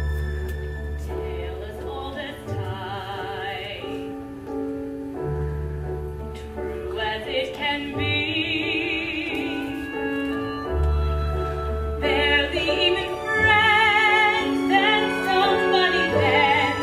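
A musical-theatre number: a high voice sings in operatic style with a wide vibrato over an orchestral accompaniment, with long low bass notes under it. The singing grows fuller and louder over the last few seconds.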